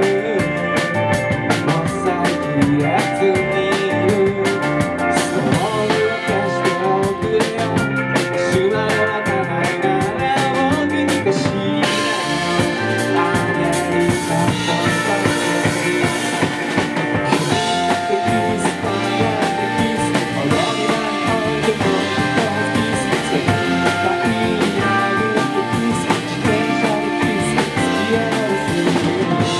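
An indie rock band playing live: electric guitars, bass guitar and drums. The sound grows fuller and brighter about twelve seconds in.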